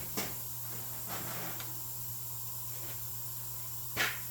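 Gas soldering torch hissing steadily while silver soldering, with a few brief sharp taps, the loudest about four seconds in.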